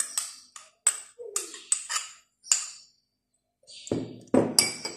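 Light clinks and taps of a drinking glass and a spoon against china dishes, followed about four seconds in by a few heavier knocks as the glass is set down on a stone tabletop.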